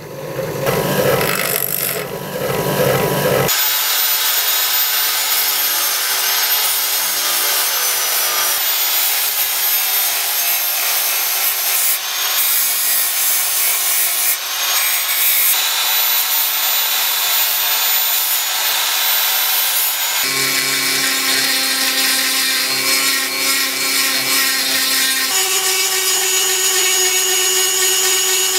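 Power tools grinding a pattern-welded steel jew's harp frame, in several short cuts: a bench grinder at first, then a narrow belt sander with a steady hiss and a high whine. About two-thirds of the way through, a handheld rotary tool takes over, adding a steady motor hum to the grinding.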